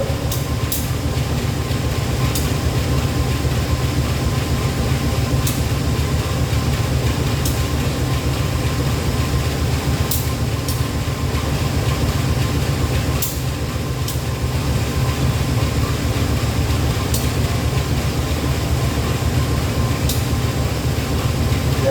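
CC 201 diesel-electric locomotive's engine running steadily with an even low hum, with a few faint high clicks every couple of seconds.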